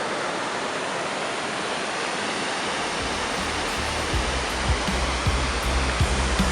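Waterfall rushing steadily. About three seconds in, background music with a steady beat and bass line comes in underneath it.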